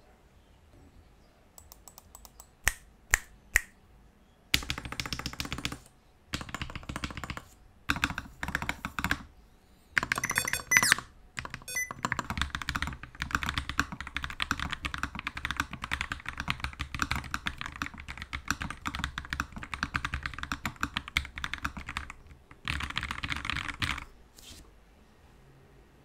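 Typing on a Kemove K68 low-profile mechanical keyboard with pre-lubed Gateron red switches and low-profile PBT keycaps. A few sharp single key presses come first, then short bursts of typing, then several seconds of steady fast typing, ending with one more burst and a last click.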